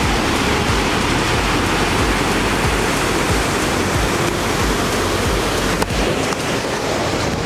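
Fast, turbulent water rushing out of a dam's canal outlet: a loud, steady rush of churning white water.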